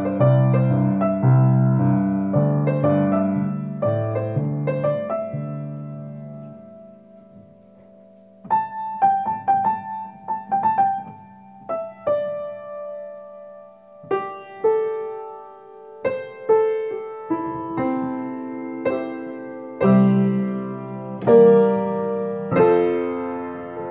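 Piano played with both hands: chords over a repeating bass figure, which fade out about seven seconds in, then a slower passage of melody notes and chords begins about a second later.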